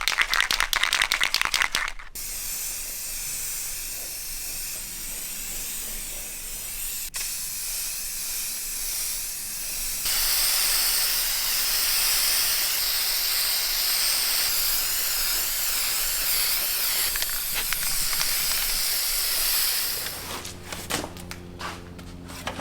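Aerosol spray can of primer: a short rattle at the start, then a long steady spray hiss with a brief break about seven seconds in, stronger from about ten seconds. The hiss stops near the end, leaving a few clicks.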